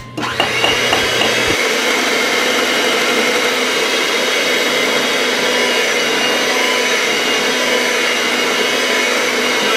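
Electric hand mixer switched on, then running steadily with its two beaters whisking cake batter in a bowl.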